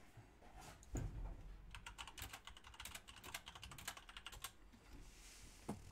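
A soft thump, then a rapid run of light clicks for about three seconds, with one more click near the end.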